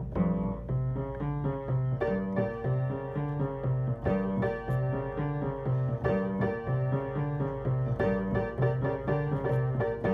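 Background music led by piano, with a steady bass line and chords changing about every two seconds.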